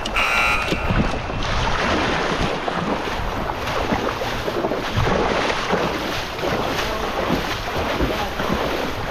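Whitewater rapids rushing steadily, with wind buffeting the microphone. A brief high tone sounds at the very start.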